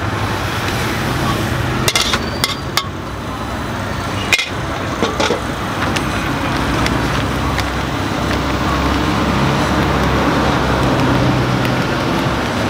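A metal spatula clanks sharply against a wok a few times in the first half. Behind it is steady street-traffic noise with a low engine hum that swells a little after the middle.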